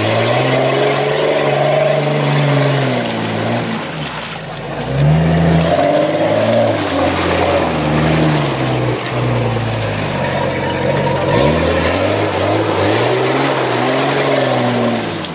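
Jeep Cherokee's engine revving hard in three long surges, its pitch climbing and falling with each one, as the SUV churns through deep snow and slush. A steady rushing hiss of spinning tyres throwing up snow and water runs under it. The 4x4 is fighting for traction, barely making progress.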